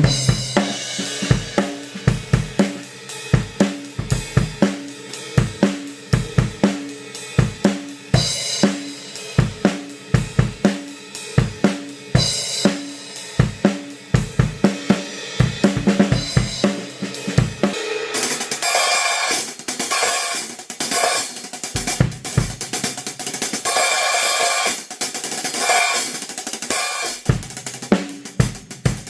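Drum kit played with Zildjian A City Pack cymbals: a steady groove of snare, bass drum and hi-hat, which about eighteen seconds in turns into a dense wash of crash and ride cymbals with fewer drum hits.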